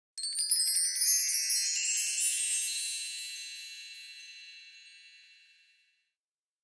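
A bright chime sound effect: a cascade of many high tinkling tones that sets in just after the start, thins out and fades away over about five seconds.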